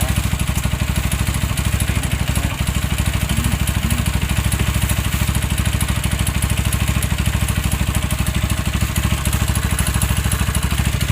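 Big-bore Yamaha Y15ZR motorcycle engine, a single-cylinder four-stroke rebuilt with a 65 mm block, idling steadily with an even exhaust beat.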